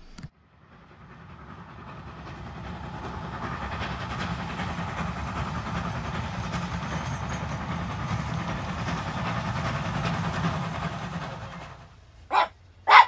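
A steam train passing: an even rumble and clatter that builds over a couple of seconds, holds steady, then fades away. Near the end a small dog barks twice.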